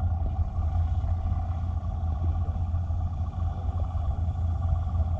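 Steady low underwater rumble of moving water, heard through a submerged camera's microphone, with no distinct events.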